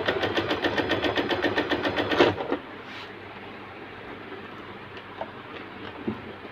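Usha Janome Allure DLX sewing machine running straight stitch with a ruffler foot fitted and no fabric, a fast, even clicking rhythm for about two and a half seconds before stopping suddenly. It is a test run: the needle clears the ruffler foot without touching.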